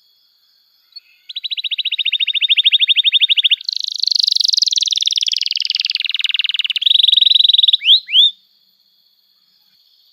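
Domestic canary singing. About a second in comes a fast rattling trill of evenly repeated notes, then a harsh, buzzy warbled phrase, another short quick trill, and two sharp downward-sliding whistles, after which it falls silent.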